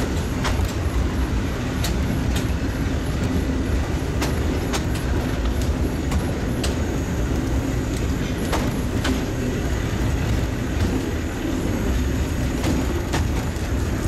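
Narrow-gauge steam train on the move: a steady low rumble of wheels running on the rails, with scattered sharp clicks and clacks at irregular intervals.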